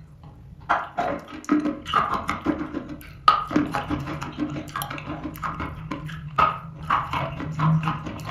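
Dry chalk being bitten and chewed close to the microphone: a quick, irregular run of crisp crunches that starts within the first second and keeps going, over a faint low hum.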